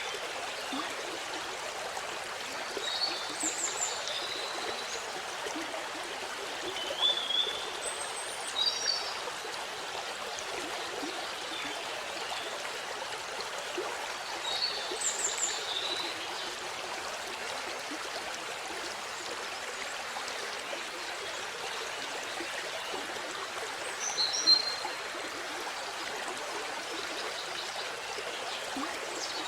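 Steady rushing of a waterfall, with short high bird chirps several times over it, the loudest about 24 seconds in.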